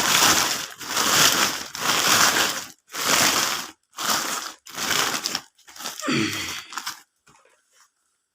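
Plastic packaging crinkling in a run of rustles about one a second as packets of rice are handled and unwrapped; it stops near the end.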